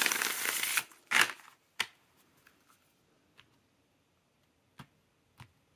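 A tarot deck riffle-shuffled by hand: a dense ruffling of cards for under a second, a shorter second riffle just after, then a sharp click and a few faint taps.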